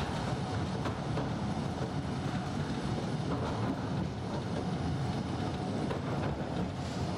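Narrow-gauge Mail Rail train running through an underground tunnel: a steady rumble of the moving train.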